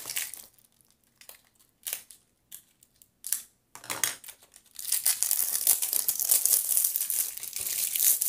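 Plastic packaging of a rolled diamond-painting canvas crinkling as it is handled. It starts as a few short crackles, then becomes a continuous crinkling from about halfway in.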